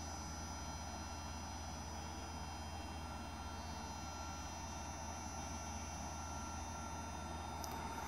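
Electric actuator motor of a 1995 Mercedes S320 non-ASR throttle body, energized on the bench, buzzing faintly and steadily. The buzzing comes from the unit running with its clutch coil failed open circuit, a fault the repairer calls common on these throttle bodies.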